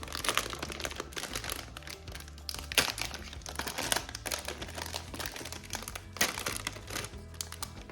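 Packaging crinkling and rustling in irregular bursts as it is handled and opened, over steady background music.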